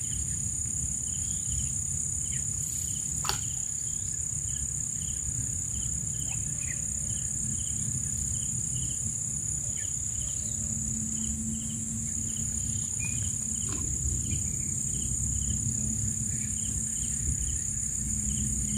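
Insect chorus: a steady high-pitched buzz, with a fainter chirp repeating about twice a second and a low steady rumble underneath.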